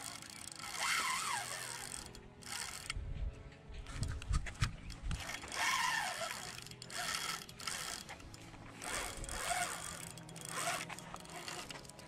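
Spinning fishing reel being cranked in spurts as a hooked fish is reeled in, its gears whirring and clicking, with music playing over it. A few dull low thumps come about three to five seconds in.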